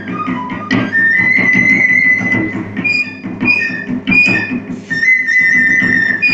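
Dance music: a high melody of held, whistling notes over a steady low beat.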